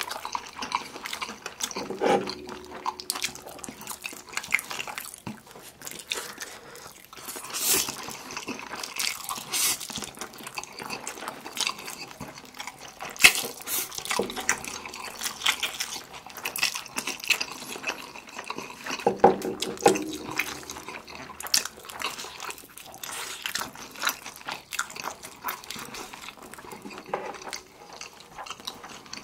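Close-miked eating sounds: wet chewing, smacking and slurping of black-bean noodles and bites into sauced fried chicken drumsticks, a steady stream of irregular small wet clicks and smacks with occasional louder bites.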